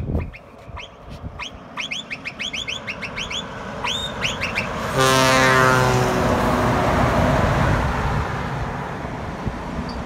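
Small birds chirping repeatedly, then about halfway through a Volvo FH16 truck sounds one long, loud horn blast as it passes close by, followed by the steady rush of the passing truck and trailer.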